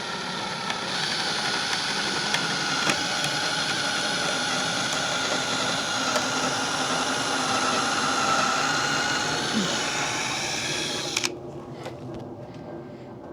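Power drill running steadily as it bores a hole, with a slightly rising whine, then cutting off suddenly about eleven seconds in.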